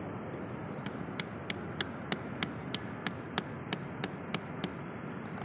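About a dozen sharp taps, roughly three a second, of a stone knocking on small rock oysters (sisi) crusted on a shoreline rock to crack their shells. They play over a steady rushing background noise.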